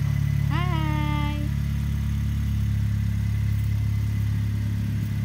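Car engine idling: a steady low hum. A brief voice sound rises and falls about half a second in.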